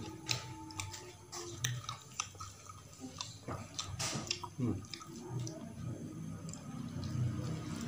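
A person chewing a mouthful of rice and chicken with the mouth closed: irregular wet smacks and clicks of the mouth, a louder one about four seconds in.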